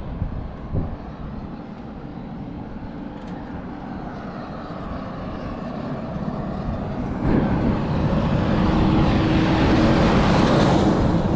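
A large vehicle approaching and passing close by. Its engine and rushing noise build steadily, jump louder about seven seconds in, and carry a steady low hum near the end.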